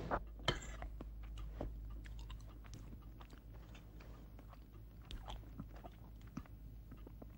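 A man eating at a table: quiet chewing with scattered small clicks of a fork against a plate, over a low steady hum.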